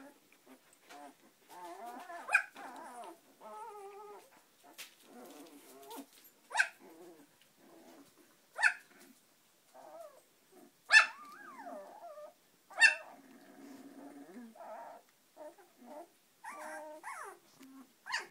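A litter of 18-day-old Samoyed puppies whimpering and squeaking almost without pause. About five short, sharp yelps stand out, spaced two to three seconds apart.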